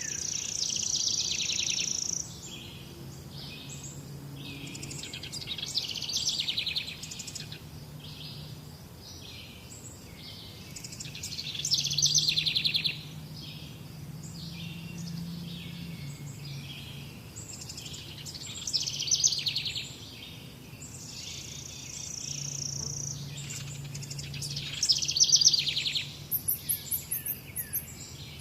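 Songbirds singing, loud warbling phrases returning every few seconds over a steady background of quieter calls. Near the end a rapid run of very high, even pulses comes in.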